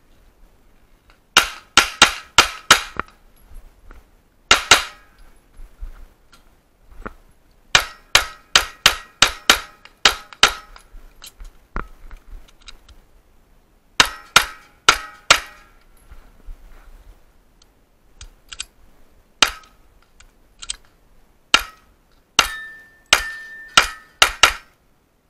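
Strings of 9mm pistol shots from a ported Smith & Wesson M&P 9 with a red-dot sight, fired in fast runs of about four shots a second. Pauses separate the runs.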